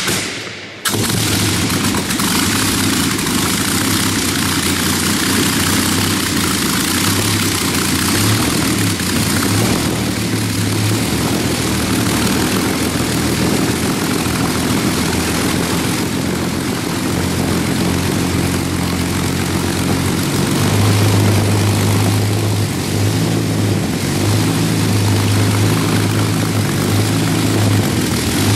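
Rolls-Royce Merlin III supercharged V12 aero engine on a test stand catching within the first second, then running steadily and loudly, its low drone swelling slightly about twenty seconds in.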